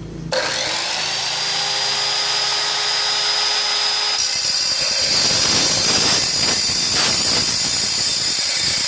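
Evolution EVOSAW180HD 7¼-inch steel-cutting circular saw starting up with a rising whine and running free for a few seconds. About four seconds in, its blade bites into an inch-and-three-quarter metal tube, and the sound turns to a loud, harsh cutting noise as it saws through.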